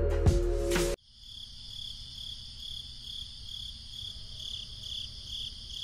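A chiming music cue cuts off about a second in, giving way to crickets chirping steadily in a pulsing chorus, a few pulses a second.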